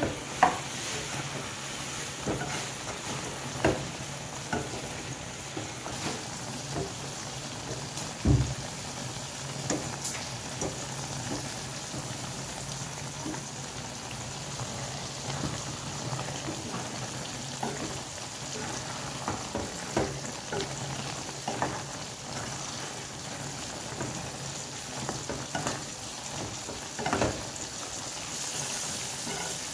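Prawn curry sizzling in a pan, stirred with a wooden spatula that scrapes and knocks against the pan now and then, with one sharper knock about eight seconds in.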